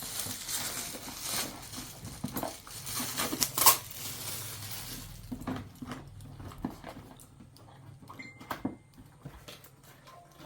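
Rustling and crinkling of a T-shirt and its plastic packaging being handled and folded, with one sharp click about three and a half seconds in, then quieter scattered handling clicks.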